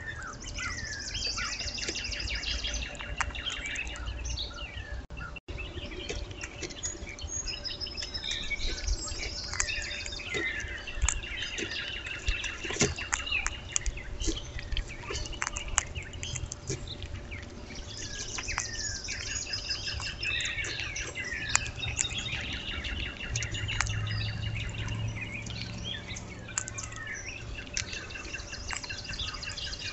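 Several songbirds chirping and trilling, call after call, over a faint steady hum. Scattered sharp clicks come from a gray squirrel cracking bird seed at the feeder.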